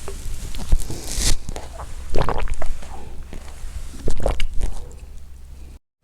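A person drinking water in gulps, with three bursts of swallowing sounds about two seconds apart over a low steady hum. The sound drops out completely for a moment near the end.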